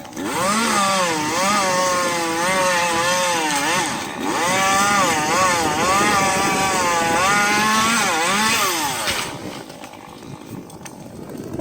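Gasoline chainsaw running at full throttle and cutting tree sections, its engine pitch sagging and recovering as the chain loads up in the wood. It drops off briefly about four seconds in, runs hard again, then falls away to a low idle about nine seconds in.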